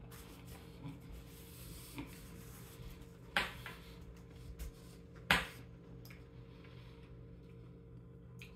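Quiet eating sounds of a man chewing cup noodles, with small handling ticks and two short hissy bursts about two seconds apart, over a faint steady room hum.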